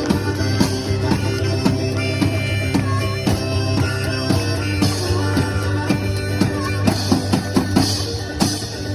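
One-man band playing: drum kit with bass drum strikes over a held low bass note and sustained instrumental tones, without vocals.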